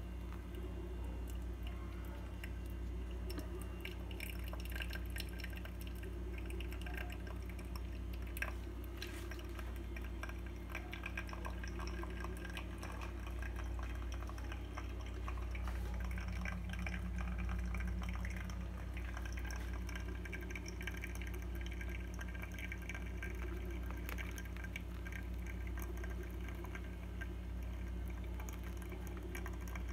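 Hot water poured in a thin stream from a kettle into a Melitta pour-over filter cone of ground coffee, with many small drips and a trickle as the brewed coffee runs into the glass carafe beneath. A steady low hum runs under it.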